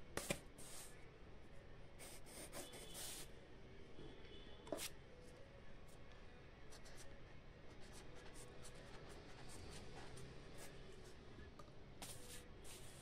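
Faint scratching of a pen writing on paper, in short strokes with pauses between them.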